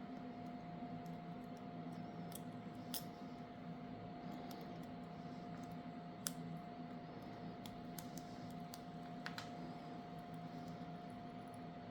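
Scattered light clicks and taps of small tools and parts being handled on a phone during a repair, the loudest about six seconds in, over a steady electrical hum.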